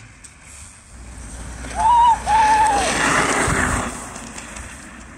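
Three-wheel-drive electric trike with hub motors passing close by on snow-covered ice: its tyres hiss over the snow, swelling about two seconds in and fading after about four. Two short high whines sound close together near the start of the swell.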